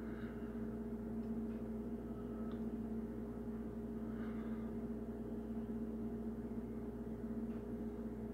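Steady low hum, two constant tones like an appliance or electrical hum in a small room, with a couple of faint soft rustles.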